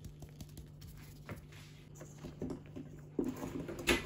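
Plastic mesh flour sieve being tapped over a steel mixing bowl: light, even taps about four a second. About three seconds in, this gives way to louder, lower irregular knocking and a sharp click as an electric hand mixer goes into the batter.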